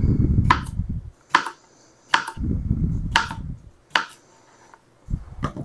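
Chef's knife slicing small cucumbers on a plastic cutting board: a sharp knock of the blade striking the board about six times, roughly once a second, with duller low rumbling between the cuts.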